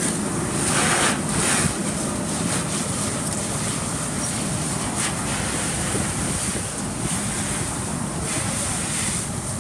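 Fire hose stream spraying water onto a burning car, a steady rushing hiss that surges about a second in.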